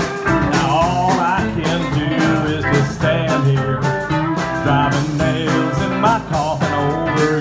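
Live country band playing an instrumental break: an electric guitar lead with bending notes over bass guitar and drums.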